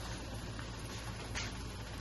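Steady low hum with a faint hiss, and one faint light tap near the end.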